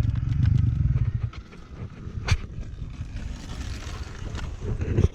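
Single-cylinder four-stroke engine of a Yamaha YZ450FX dirt bike idling, stopping about a second in. After it come a few sharp clicks and light scraping.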